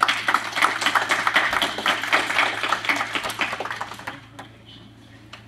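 A small congregation applauding: many hands clapping at once, dying away about four seconds in.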